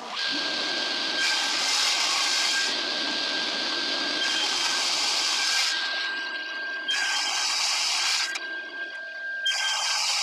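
Table saw running with a steady whine while its blade cuts strips off a glued-up garapeira and maçaranduba board, with harsher cutting noise coming and going over several passes.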